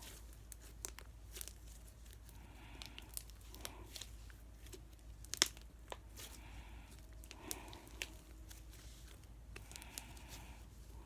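Slime being squeezed and stretched by hand, with scattered sticky clicks and pops. The loudest pop comes about five and a half seconds in.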